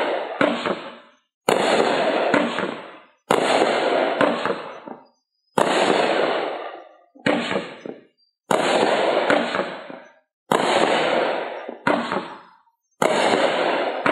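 Hot Fireworks Cyber Cycle 15-shot consumer firework cake firing shot after shot, about every second and a half. Each shot is a sudden bang that trails off over a second or so, about nine in all.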